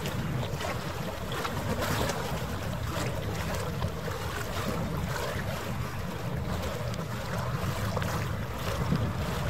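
Wind rumbling and buffeting on the microphone over the wash of harbour water, sped up to nearly three times normal speed.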